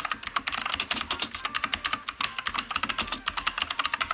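Fast, continuous typing on a mechanical keyboard with clicky blue-type switches, many sharp key clicks a second, stopping abruptly at the end.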